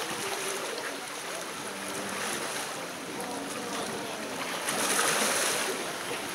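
Open-air lake ambience: steady wind and water noise, swelling louder for about a second around five seconds in.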